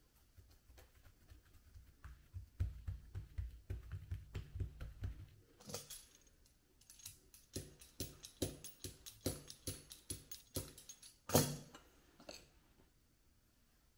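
Percussive music of quick taps and clicks, with a low pulsing beat underneath for a few seconds after the start and sharper, denser clicks later; the loudest single hit comes about two-thirds of the way through.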